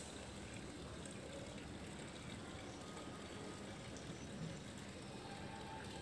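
Faint, steady, hissing outdoor background noise with no distinct events.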